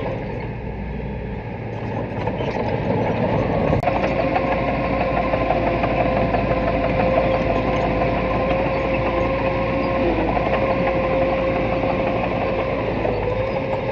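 Diesel engine of an earthmoving machine running steadily with a high, even whine over it. It gets louder about two seconds in, with a single sharp click a little later.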